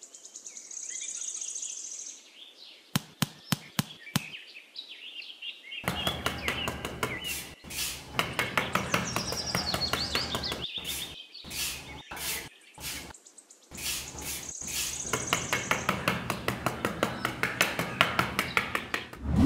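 Birds chirping and twittering, with runs of sharp clicks and taps, several a second in places.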